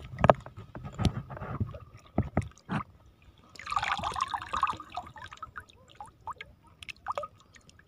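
Shallow seawater splashing and dripping as a gloved hand lifts a sea urchin out of the water, the splashing densest about four seconds in, then falling off to scattered drips. Sharp knocks and clicks come in the first few seconds.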